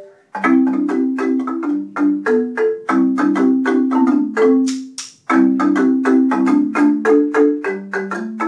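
Marimba played by two people at once with mallets: quick, rhythmic runs of ringing wooden notes in short phrases, with brief breaks about two and five seconds in.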